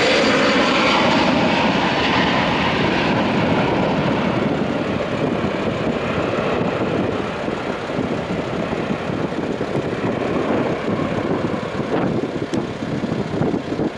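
Airbus A321's twin jet engines at takeoff thrust as the airliner climbs away. It is a loud roar with a higher whine that fades within the first few seconds, leaving a deeper roar that slowly grows fainter.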